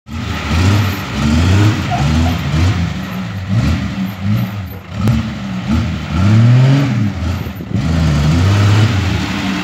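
Old 4x4's engine running on a cold first start after twelve years standing, revved up and down again and again.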